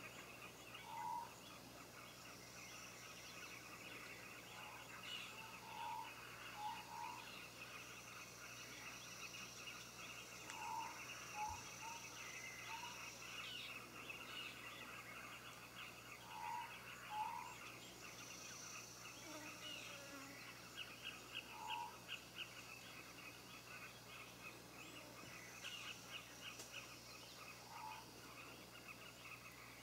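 Faint wild bush ambience: a steady, rapid chirring of insects, with short clipped animal calls repeated every few seconds, sometimes in pairs.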